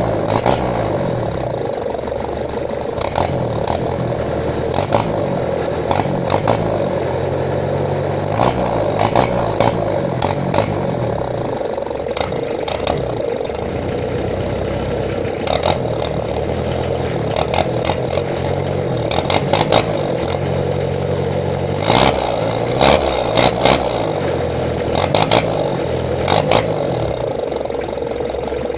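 Mitsubishi L300's 4D56 inline-four diesel running through a straight-piped exhaust with the muffler deleted and an Aerojet tip fitted. The engine note rises and falls several times, with sharp clicks scattered over it, thickest about two thirds of the way through.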